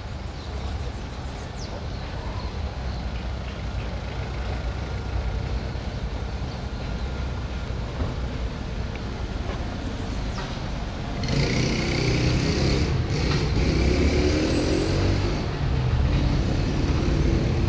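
City street traffic: a steady low rumble of passing cars. About two-thirds of the way through, a louder vehicle comes close, with a hiss on top of its engine, and stays loud to the end.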